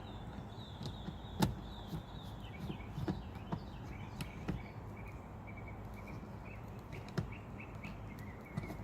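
Quiet outdoor ambience with faint bird chirping and a few sharp clicks, the loudest about a second and a half in.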